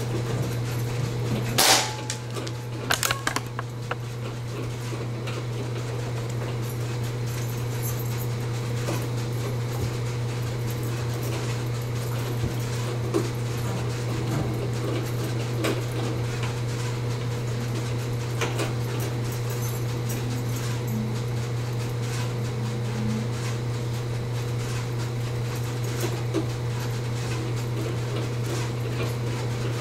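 A single shot from a Benjamin Marauder Woods Walker .22 precharged pneumatic air pistol a little under two seconds in, followed about a second later by a few quick clicks. A steady low hum runs underneath.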